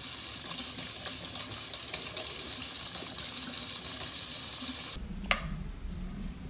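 Steady rush of running water, like a tap, that stops abruptly about five seconds in, followed by a single click.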